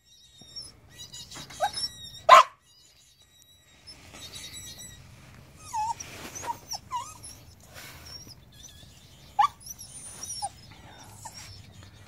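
Short, sharp distress squeals from a baby rabbit that has just been bitten by an adult doe: a few brief cries, the loudest about two seconds in and another about nine seconds in, with short wavering calls around six to seven seconds.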